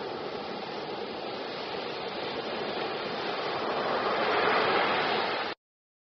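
Ocean surf: waves breaking and washing up on a beach as a steady rush of foam, swelling louder about four seconds in, then cutting off abruptly to silence.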